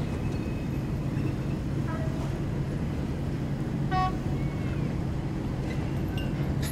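Steady low engine drone of vessels working in the harbour. About four seconds in comes a short, high pitched beep.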